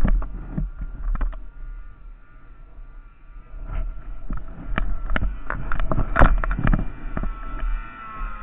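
Snowmobile engine running with a faint, slightly wavering whine over a steady low rumble. From about four seconds in come many sharp knocks and thumps, the loudest a little after six seconds.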